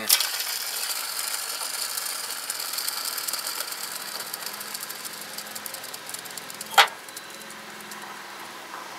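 Worn bearing in the serpentine belt tensioner pulley of a 1991 Ford F-150, spun by hand: a whir with fine rapid ticking that slowly fades as the pulley coasts down, and one sharp click about seven seconds in. The bearing spins too freely and is worn out.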